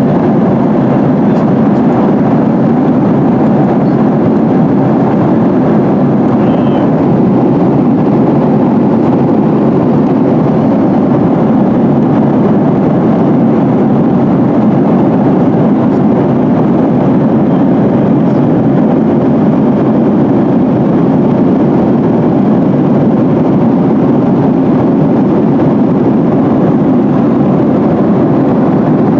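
Steady cabin noise inside a Boeing 737-800 in flight: an even rumble of its CFM56 engines and airflow over the fuselage, heard from a seat behind the wings.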